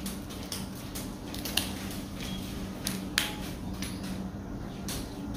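Kangkong (water spinach) stems snapping and leaves rustling as they are picked off by hand: a few sharp snaps, the loudest about a second and a half in and about three seconds in. A steady low hum runs underneath.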